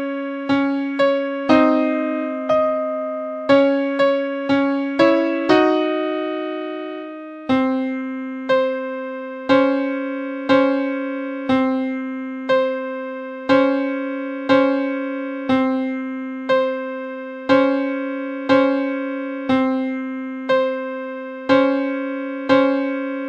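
Electric-piano-style keyboard tone from a software-made tune. Separate struck notes each decay away. A quicker figure ends in a held higher note about six seconds in, and after that a single low note repeats about once a second.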